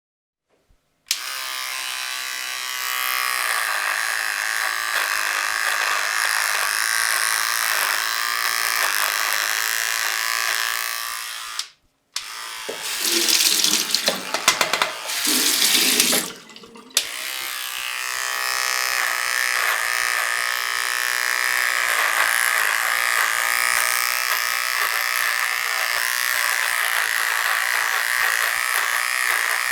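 Electric beard trimmer switching on about a second in and buzzing steadily. It cuts out briefly near the middle, followed by about five seconds of louder, uneven noise, before the steady buzz resumes.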